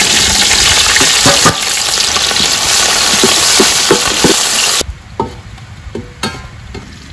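Sliced onions sizzling loudly as they hit hot oil in a large steel pot, with a slotted metal ladle knocking and scraping against the pot as they are stirred. The sizzle stops abruptly about five seconds in, leaving a much quieter background with a few faint clicks.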